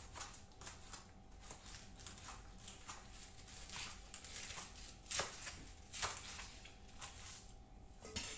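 Knife cutting Chinese broccoli on a cutting board, with the stalks and leaves being handled: a string of quick, irregular cuts and rustles, and two louder knocks about five and six seconds in.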